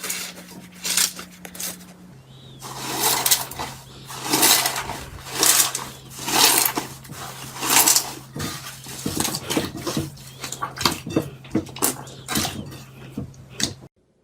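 Slime being squeezed and squished by hand: repeated wet squelches about once a second, coming quicker and shorter in the second half and stopping suddenly near the end, over a steady low hum.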